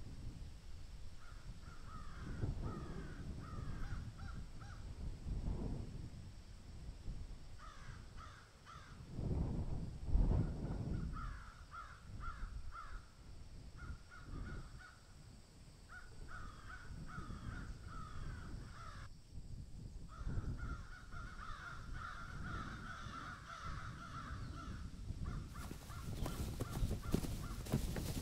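Crows cawing in repeated series over a low, uneven rumble. Near the end, a run of marching footsteps on dry leaves begins.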